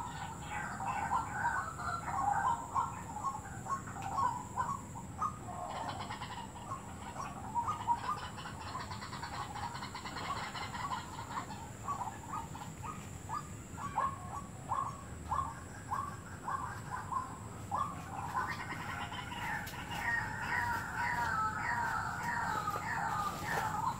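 White-breasted waterhen calls played as a lure through a Bluetooth speaker: a long run of short, repeated croaking notes a few times a second. They grow denser and more excited from about three-quarters of the way in.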